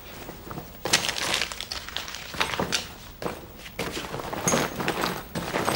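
Someone rummaging through their belongings in search of a letter: irregular rustling with small knocks and clinks of items being pushed about.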